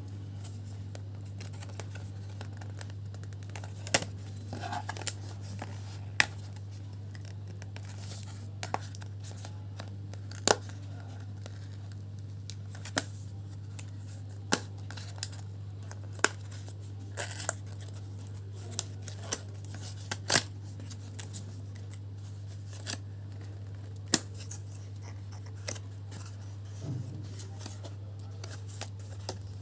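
Sealed retail box being cut and opened by hand: scattered sharp snips and clicks with some scratching and tearing of packaging. A steady low electrical hum runs underneath.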